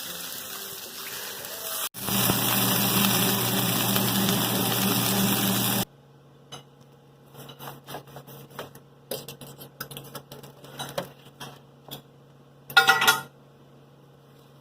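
Kitchen cooking sounds: a steady hiss, joined by a low hum about two seconds in, stops sharply near six seconds. Scattered clinks and taps of utensils on pots and dishes follow, with one short louder clatter near the end.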